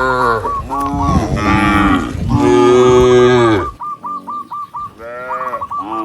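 Cattle mooing, several long calls overlapping at first, then another cow calling again near the end. A run of quick, evenly repeated high chirps comes through in the gap between the calls.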